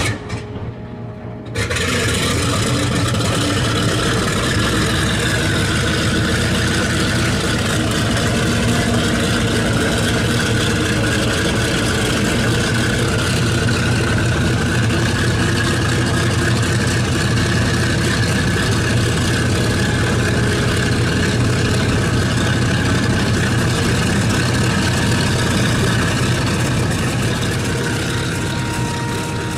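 A Boeing B-29 Superfortress's Wright R-3350 eighteen-cylinder radial engine being started. It coughs out smoke for a second or so, catches about two seconds in, then runs steadily, easing off slightly near the end.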